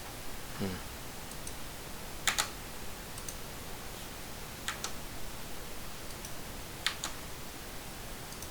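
Computer keyboard being typed on slowly: a few separate sharp key clicks about two seconds apart with fainter taps between, over a steady hiss. A brief falling sound about half a second in.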